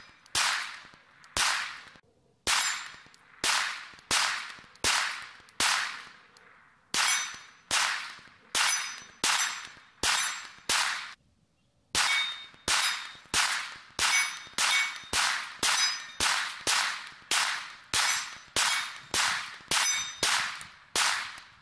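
Glock 19X 9mm pistol firing a long string of about thirty shots, each with a short fading echo. The shots come at about one a second at first, then, after a brief pause a little past halfway, faster, nearly two a second.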